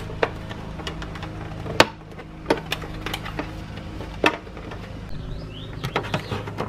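Plastic outer casing of a Keurig K-Classic B40 coffee maker clicking as its filed-down clasps are snapped together and pulled apart: one sharp click a little under two seconds in, a few smaller clicks, and a cluster of clicks near the end, over a faint steady hum.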